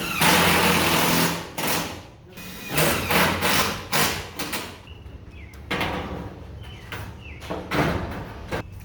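A long rattling clatter, then a string of irregular knocks and rattles, typical of sheet-metal trim pieces being handled and fitted.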